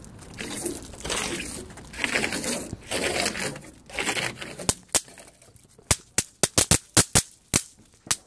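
Rustling and crinkling as bang snaps are handled, then about a dozen sharp pops in quick succession over the last three and a half seconds as the snaps are thrown down onto the wooden boardwalk and burst.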